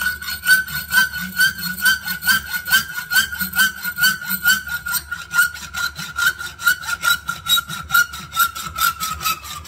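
Hand hacksaw with a freshly fitted blade cutting through a metal bolt clamped in a bench vise, in even strokes of about two a second. A steady ringing note runs under the strokes and sinks slightly in pitch toward the end, and the sawing stops abruptly near the end.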